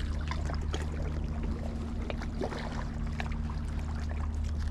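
A motor hums steadily at a low pitch, with scattered light clicks and water splashes over it.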